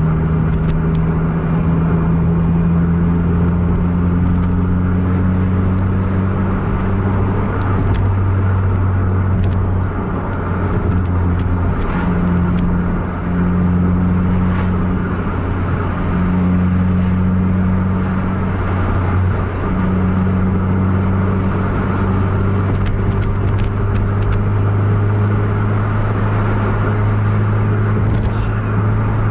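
Car engine and road noise heard from inside the cabin while driving at speed: a steady low drone.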